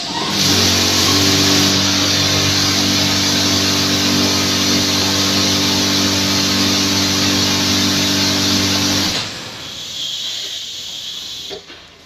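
Touchless car wash machine blasting high-pressure water at a car's wheel: a loud spray hiss over a steady motor hum. Both cut off suddenly about nine seconds in, leaving a fainter hiss.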